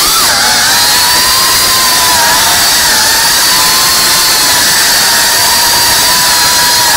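Tiny whoop FPV drone's brushless motors and propellers whining steadily, the pitch dipping and recovering slightly as the throttle eases and picks up, over a hiss of prop wash.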